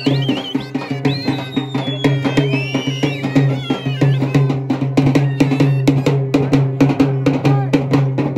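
Folk festival drums beaten in quick, steady strokes over a steady low drone, with a high wavering tune that drops out about halfway, leaving the drums alone.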